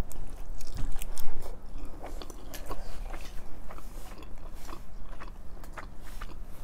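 Close-miked eating of spaghetti with sausage sauce: wet chewing, lip smacks and noodles being slurped in, with irregular small mouth clicks, over a low steady hum.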